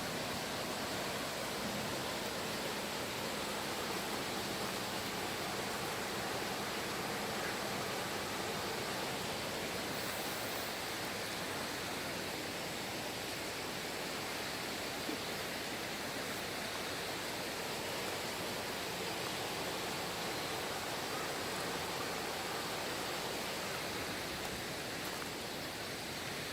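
Steady rush of a mountain valley stream.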